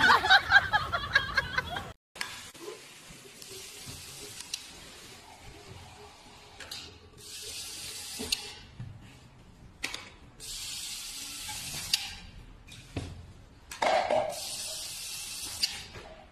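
Water running from a tap over a plastic thermos flask, coming in several separate spurts of a second or two each with quieter gaps and a few knocks between them.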